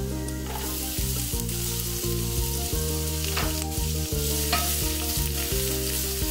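Chopped onion sizzling in hot oil with garlic and ginger in a nonstick frying pan, with a plastic spatula stirring and scraping across the pan. The sizzle grows louder about half a second in, over a low hum that cuts in and out every second or so.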